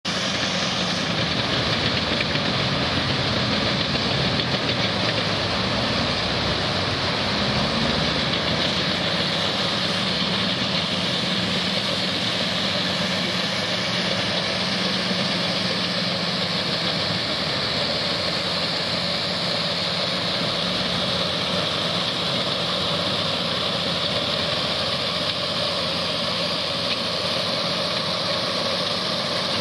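Floodwater of a swollen creek rushing steadily over a washed-out crossing, a dense unbroken noise, with the low steady drone of a hydraulic excavator's diesel engine underneath, plainest in the first two thirds.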